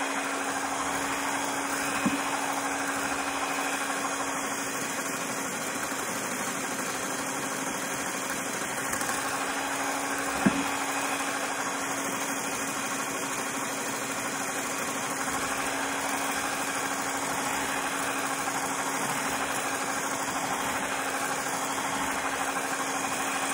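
Electric hand mixer running steadily, its wire beaters whipping egg whites and sugar in a glass bowl, with two sharp clicks about two seconds and about ten seconds in.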